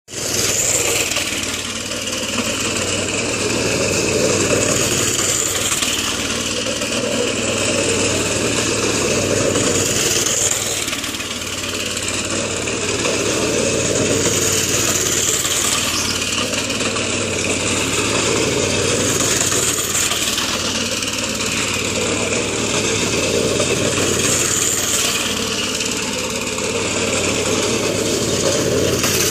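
Small go-kart engine running hard as the kart laps a tight grass-and-dirt loop, its sound swelling and easing every few seconds as it speeds up, turns and passes by.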